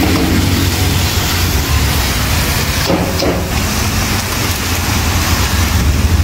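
Beef sizzling in a hot wok as a steel spatula stirs it, over a steady low roar.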